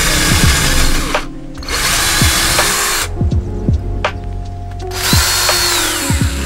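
Ryobi cordless drill boring through a thin aluminium bracket in three bursts; after the last burst the motor's whine falls in pitch as it spins down.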